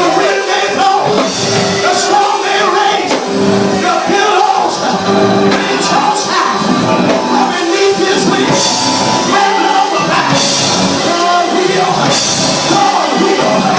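Loud live gospel music from a church band, with held chords and cymbals, and a voice singing and shouting over it.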